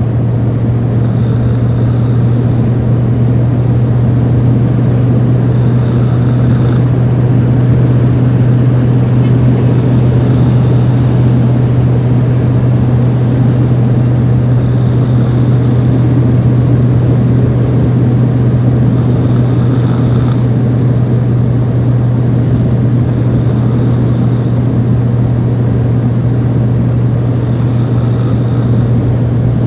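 A sleeping person snoring softly, one airy breath about every four and a half seconds, seven in all, over a steady loud low hum.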